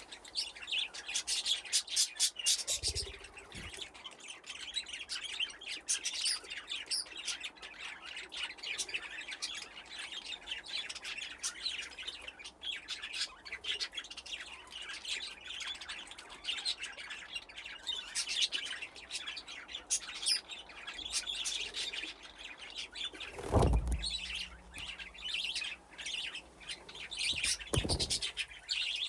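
A flock of budgies chirping, chattering and warbling continuously, many birds at once. A few dull thumps are heard along with it: once about three seconds in, and twice near the end, the first of those the loudest sound.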